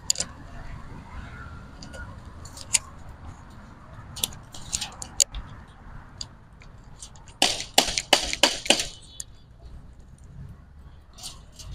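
Sharp metallic clicks and snips of wire mesh and hand tools being worked on a fish trap under construction, scattered, with a quick run of about eight clicks some seven and a half seconds in.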